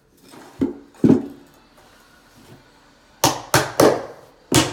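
Hammer striking the nails of a wooden carpet tack strip into an OSB subfloor: two sharp blows, a pause of about two seconds, then four more in quick succession near the end.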